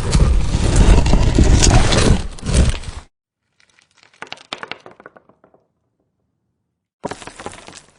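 Stone sound effects: a loud run of rock crumbling and grinding that cuts off abruptly about three seconds in, then a quieter crackle of stone that fades away, and a short burst of crumbling stone near the end.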